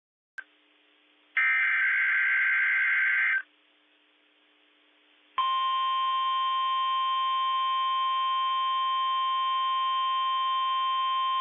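Emergency alert signalling on NOAA Weather Radio: a two-second burst of warbling SAME digital header tones, then, about two seconds later, the steady single-pitch 1050 Hz warning alarm tone, which starts suddenly and holds unbroken. Together they mark the start of a new weather alert broadcast.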